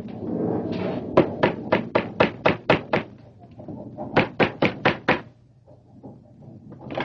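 Rapid knocking on a door in two rounds: about eight quick raps, a pause of about a second, then five more.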